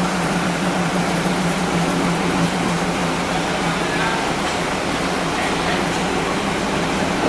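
Steady low hum of a stationary train's diesel engine idling, heard from inside a passenger carriage, over an even background hiss.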